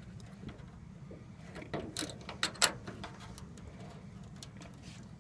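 Metal clicks and knocks from the hand-operated wing-fold hinge and lock of a Grumman F4F Wildcat being worked as the wing is folded. A quick cluster of sharp clicks comes about two seconds in, the loudest just after, with a few lighter ticks before and after, over a low steady hum.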